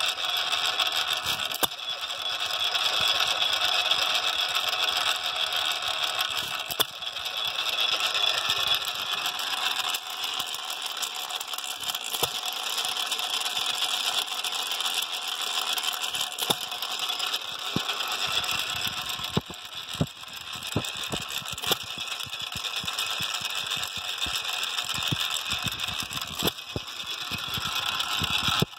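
1929 Hercules Model S 1¾ hp hit-and-miss engine running slowly, governed down below its rated speed: a steady mechanical clatter of its gears and valve gear, with a sharp knock every few seconds as it fires and then coasts.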